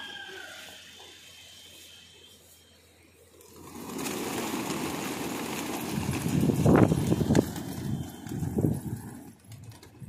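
A large flock of pigeons, some 700 birds, landing together: a loud rush of many wings flapping starts about four seconds in, with a few louder thumps in the middle, and eases off near the end.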